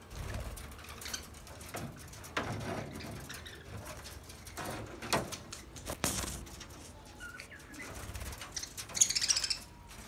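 A flock of budgerigars chirping and chattering in short scattered calls, with wings fluttering now and then; a burst of louder, rapid chirping comes near the end.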